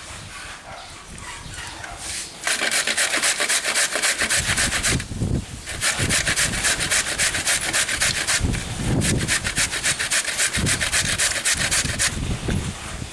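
A carrot being grated by hand on a metal grater: rapid rasping strokes in three bouts, starting about two seconds in, with short pauses between the bouts.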